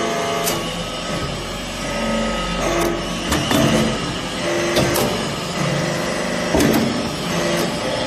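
Hydraulic metal-chip briquetting press working, its ram driving down to compact shavings in the hopper: a low hum that stops about three seconds in, with short tones and several sharp clanks and knocks.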